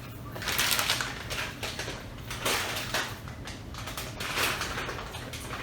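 Three rough bursts of rustling, crinkling noise a couple of seconds apart, over a low steady room hum.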